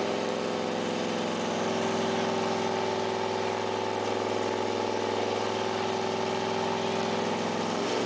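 Dodge Coronet muscle car doing a burnout: the engine is held at steady high revs while the rear tyres spin and squeal on the pavement, a loud, unbroken sound.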